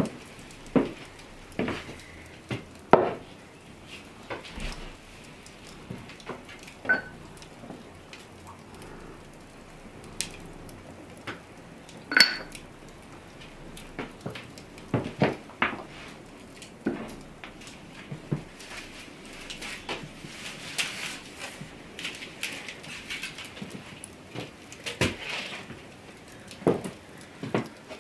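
Earthenware and kitchenware being handled and set down: scattered knocks and clinks, a few ringing briefly, the loudest about three seconds in and again about twelve seconds in.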